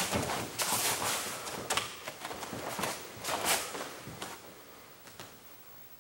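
Bare feet scuffing on foam training mats and the rustle of a heavy karate gi as a man walks and drops into a fighting stance: a string of short swishes and scuffs that thin out and fade over the last two seconds.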